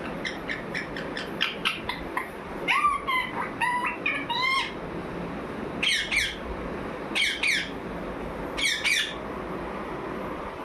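Pet parrot giving a run of short chirps and clicks, then about five harsh squawking calls spaced a second or two apart.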